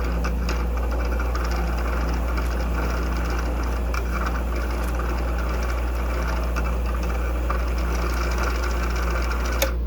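Sewing machine motor running steadily while it winds elastic thread onto the bobbin, then cutting off suddenly near the end as the bobbin winder stops.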